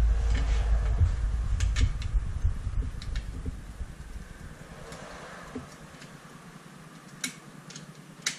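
A low rumble that fades out about halfway through, with a few sharp small clicks and taps of hard plastic parts being handled as a chainsaw on/off switch is fitted. The clearest clicks come near the end.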